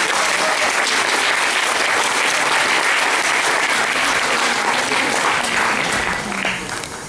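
Audience applauding: steady, dense clapping that eases off slightly near the end.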